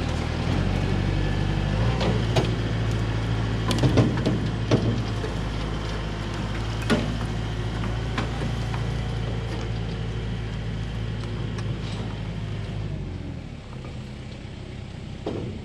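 Kubota M6060 tractor's diesel engine running steadily, with several sharp metal clanks from the chain and towed baler. The engine drops away near the end and stops.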